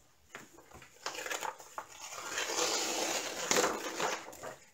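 Rustling and crinkling of large paper sheets and a diamond painting canvas being handled and slid over a board. It starts about a second in and runs on with a few sharper crackles.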